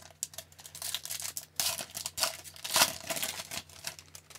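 Foil wrapper of a hockey card pack being torn open and crinkled by hand: a run of irregular crackling rips, loudest about halfway through, that stops just before the end.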